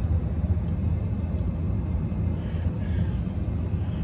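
Steady low rumble of traffic on a busy highway, with no single passing vehicle standing out.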